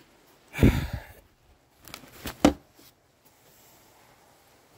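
Handling noises while the aluminium intake manifold and the camera are moved on a small-block engine: a muffled thump and rubbing about half a second in, then three sharp clunks around two seconds in.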